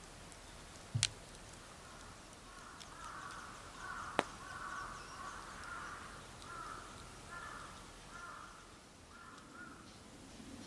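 A crow cawing over and over, a long run of short harsh calls starting about two and a half seconds in and stopping shortly before the end. A sharp knock about a second in and a sharp click about four seconds in.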